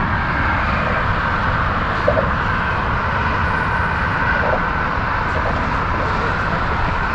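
Steady outdoor rushing noise with a low rumble underneath and no distinct events.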